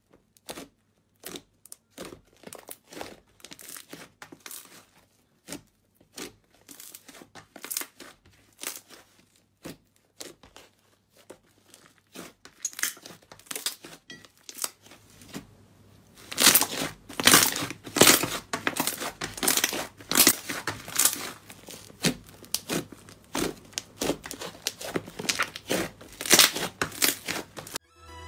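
Slime being squeezed and pressed by hand, giving off a run of crackling, popping clicks. These are sparse and quiet at first, then turn much denser and louder a little over halfway through.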